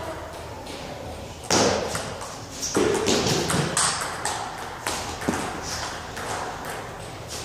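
Table tennis rally: the ball clicks off the bats and the table in quick succession for about four seconds, with louder noisy bursts among the hits. The hits echo in a large hall.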